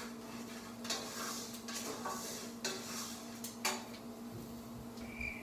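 Kitchenware clinking: about eight light clatters of pans, dishes and utensils in the first four seconds, over a steady low hum.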